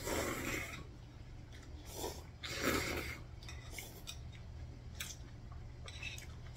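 Noodles being slurped from a bowl, twice: at the start and again about two and a half seconds in, with metal chopsticks clicking against the bowl in between.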